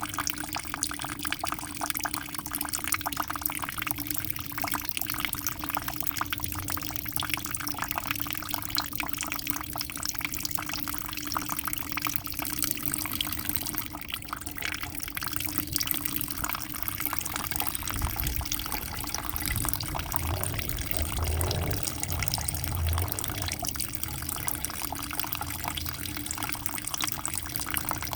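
Aquarium water splashing and bubbling steadily, over a steady low hum.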